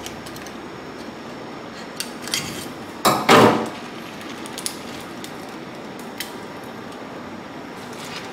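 Hard knocks and scrapes of a large rock oyster's shell and a knife against the stainless steel sink while the shell is pried open, with one louder crunching scrape about three seconds in and a few sharp clicks, over a steady background hiss.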